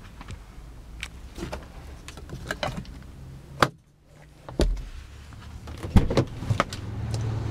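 Scattered clicks and knocks of a hand working a car's interior trim, first the sun visor and then the inside door handle, with a sharp knock about six seconds in.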